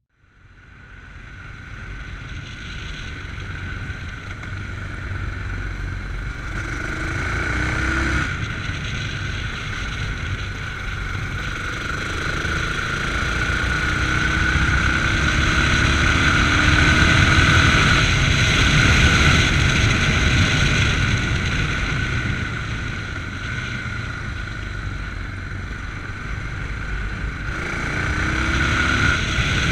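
Yamaha MT-03 motorcycle engine running under way, fading in from silence at the start, with wind rushing over a chest-mounted camera. The engine note rises in pitch several times as the bike accelerates.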